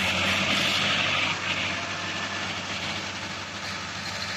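Heavy diesel engine of earthmoving machinery running steadily with a low hum, with a burst of rushing, hiss-like noise over it for about the first second and a half.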